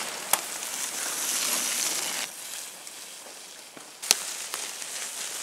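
Mountain bike tyres rolling over dry leaves and mud as riders pass close, a rustling crackle that fades after about two seconds. Two sharp cracks stand out, one just after the start and a louder one about four seconds in.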